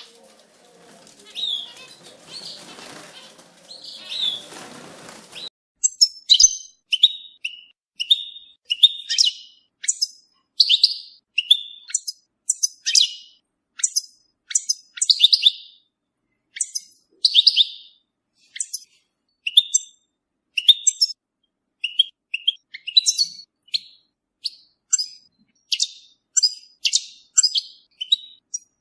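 European goldfinch singing: quick runs of high, twittering chirps and trills in short phrases. A grainy hiss sits under the first few chirps and drops away about five seconds in.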